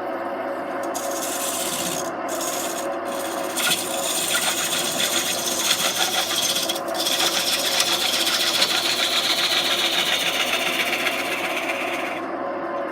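Woodturning tool cutting into a spinning green sycamore bowl blank on a lathe: a continuous scraping hiss that starts about a second in, grows louder a few seconds later, slowly drops in pitch and stops near the end.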